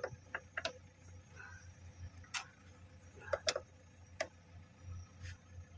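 Metal wrenches on a truck air-conditioning pipe fitting, giving a few scattered sharp metallic clicks and clinks as the fitting is worked loose, the strongest about two and a half seconds in and again about a second later. The fitting is tight from dust.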